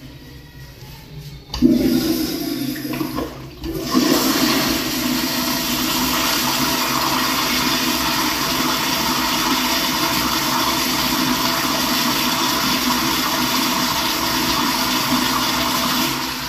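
American Standard Afwall wall-hung toilet flushing through a chrome sensor flushometer set off by its manual button. The rush of water starts suddenly about a second and a half in, dips briefly, then runs steady and loud, beginning to fade near the end.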